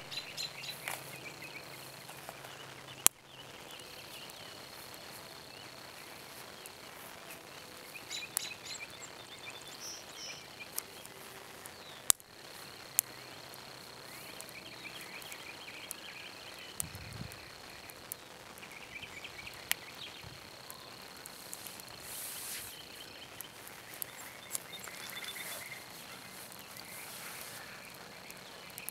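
Outdoor ambience: insects trilling on one steady high note that stops and starts, with birds chirping now and then and a few sharp clicks.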